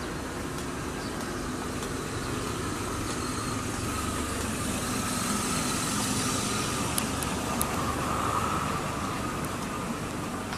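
A motor vehicle engine running, a steady hum that grows louder in the middle and then eases off, with a couple of light clicks.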